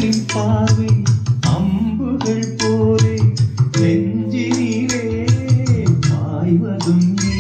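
A Tamil film song playing, with fast percussion strikes over a sustained bass line and melody.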